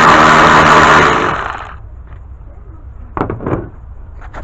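Cordless power wrench spinning out a 13 mm fan bolt: a loud, steady motor whine that stops about a second in. A few light knocks of the tool and bolt follow.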